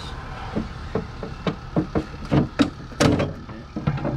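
Plastic windshield cowl panel being worked free and lifted off: a string of irregular plastic knocks and clatters, the loudest about three seconds in.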